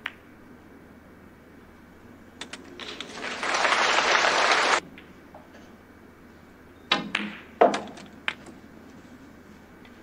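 Snooker balls clicking, with a burst of audience applause in the middle. A brief rise of clapping cuts off abruptly about halfway through. A few seconds later comes a quick run of sharp clicks, the cue tip striking the cue ball and the resin balls knocking together.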